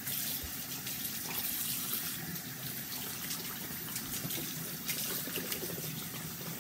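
Bathroom sink faucet running steadily, its water stream splashing into the basin and over a fabric hand puppet held in the stream. The water comes on right at the start.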